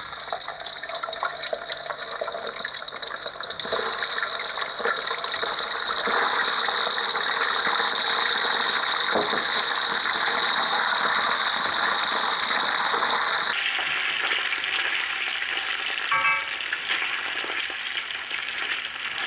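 Pieces of boiled chicken deep-frying in hot oil in a wok: a steady sizzling hiss of bubbling oil that grows louder a few seconds in.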